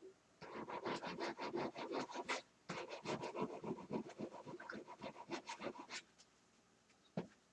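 Model locomotive running on the layout track: a rapid, rattling clicking of wheels over the rails with a faint steady motor whine. It breaks off briefly and stops about six seconds in, followed by a single click near the end.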